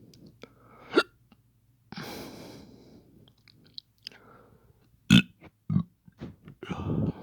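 Faked hiccups and a burp from a person: sharp gulping hiccups about a second in and twice around five seconds, a breathy rush of air between them, and a longer low burp near the end.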